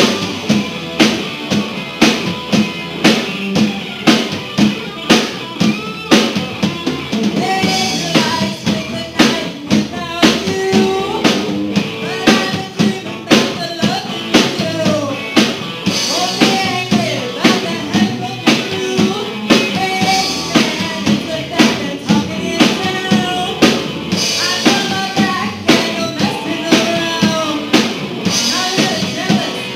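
Live rock band playing: drum kit keeping a steady beat of about two hits a second under electric guitars and bass.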